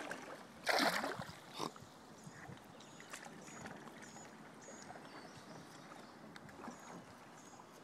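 A loud splash of water about a second in, with a smaller one just after, then faint lapping water and a few short high chirps.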